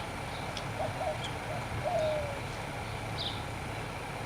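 Birds chirping with short high calls, with a few brief lower notes and one falling call about two seconds in, over a steady low background hum.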